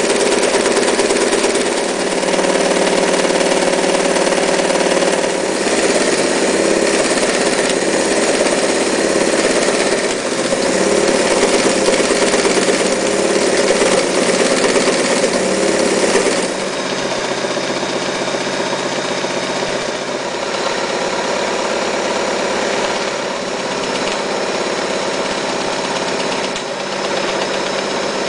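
Mitsubishi MAZ4 electric sewing machine running steadily as it stitches, a continuous motor and mechanism hum. About sixteen seconds in it settles to a slightly quieter, changed running sound.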